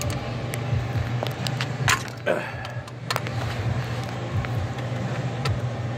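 Scattered metallic clicks and knocks from a ratchet wrench being worked on the serpentine belt tensioner bolt, the loudest about two seconds in, over a steady low hum.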